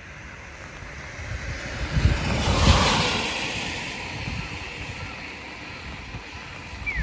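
A vehicle passing on a wet road: a rush of tyre noise swells to a peak about two and a half seconds in, then slowly fades away.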